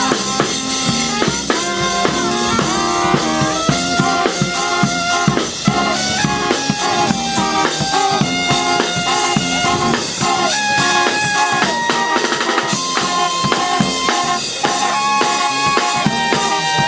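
Marine Corps brass jazz band playing a New Orleans-style tune: saxophone, trombones and trumpet carry held melody notes over sousaphone and drums keeping a steady beat.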